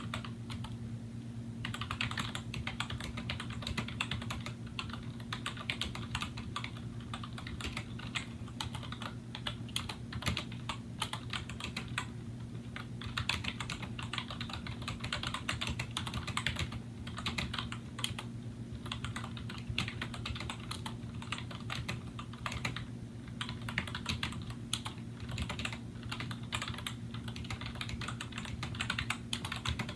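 Fast, continuous typing on a 2000 Apple M7803 Pro Keyboard, its Mitsumi rubber-dome switches with integrated sliders clicking in quick runs broken by a few short pauses. A steady low hum sits underneath.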